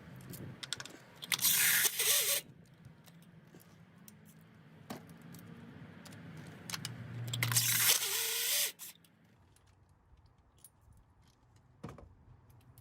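An impact gun runs in two bursts, about a second long and then about two seconds long past the middle, spinning spark plugs out of a Honda Accord four-cylinder engine. Light metallic clinks come in between.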